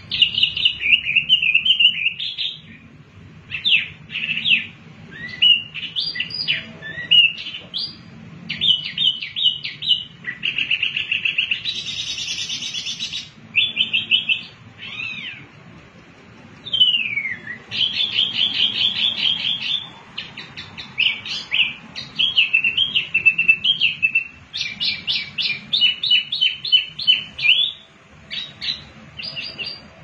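A caged wambi (mini hwamei) songbird singing a long, varied song of rapid, high chattering trills and whistled notes, with a short harsh buzzy phrase about twelve seconds in and a downward-slurred whistle a few seconds later.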